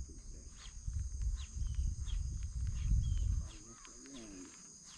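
Insects droning steadily at a high pitch, with scattered short chirps, over a low rumble that drops away about three and a half seconds in.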